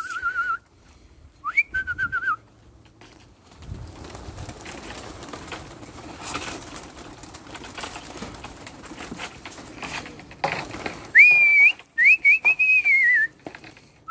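A person whistling to pigeons: short whistles that rise and then break into a warbling trill. One ends just after the start, one comes about two seconds in, and two come near the end, with several seconds of fainter hissing noise in between.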